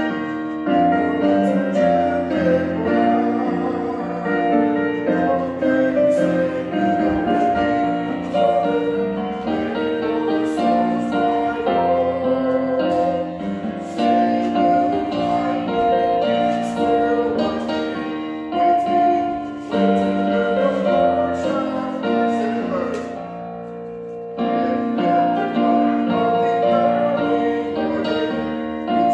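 A congregation singing a hymn with piano accompaniment, in long held notes, with a short pause a few seconds before the end.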